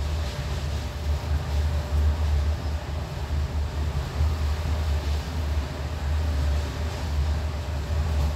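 Passenger train running along the line, heard from on board: a steady low rumble with rushing wind noise over it.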